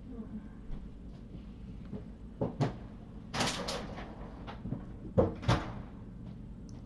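Knocks and clatter of things being handled, like a cupboard door or dishes, with a short scraping rustle about three and a half seconds in and two sharp knocks a little past five seconds.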